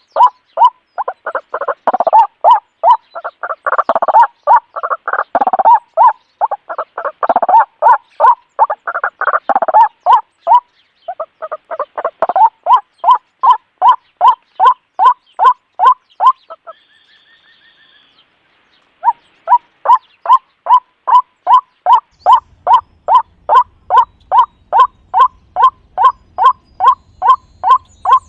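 Loud, rapid animal calls repeating very evenly about twice a second, each short and pitched around 1 kHz, with a break of about two seconds a little over halfway through.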